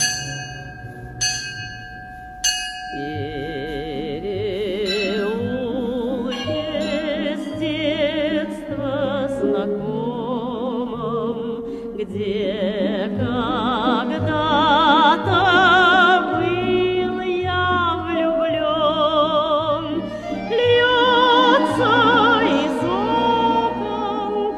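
A small hanging bronze bell struck by its clapper three times in quick succession, each stroke ringing on. About three seconds in, a song takes over: a singer's voice held with strong vibrato over instrumental backing.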